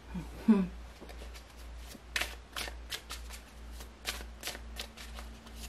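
Tarot cards being shuffled by hand: a run of short, crisp card clicks, about four or five a second, starting about a second in. A brief voiced 'hmm' comes just before it.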